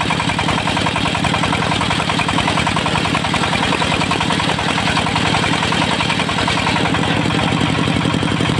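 Diesel engine driving a circular-saw sawmill, running steadily at an even speed.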